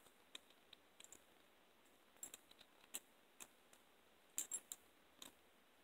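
Hinged steel handcuffs being handled: scattered small metallic clicks and clinks, in short clusters, with a bright ring on the sharpest ones.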